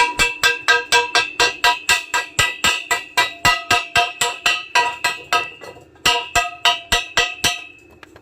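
A metal pipe struck over and over, about four strikes a second. Each blow rings at the same pitch, and the strikes stop shortly before the end.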